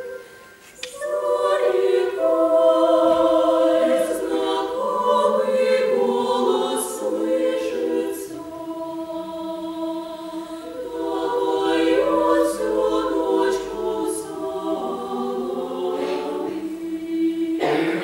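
Mixed choir of men's and women's voices singing a cappella in several parts, holding sustained chords of a Russian folk song; the voices break off briefly and come back in about a second in.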